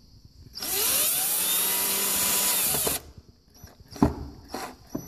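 Power drill/driver driving a small screw into the shock mount plate. The motor whines up in pitch, runs steadily for about two seconds and stops abruptly, followed by a few brief bursts near the end.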